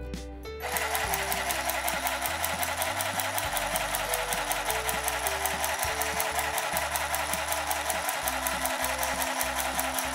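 Cordless handheld mini sewing machine running continuously, its needle mechanism clattering in a rapid, even rhythm as it stitches through four layers of fabric; it starts about half a second in.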